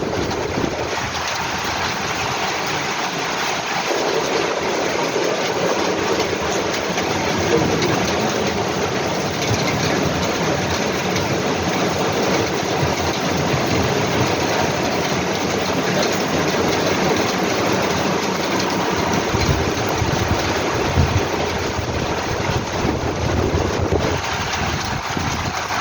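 Heavy thunderstorm rain, a dense, steady hiss.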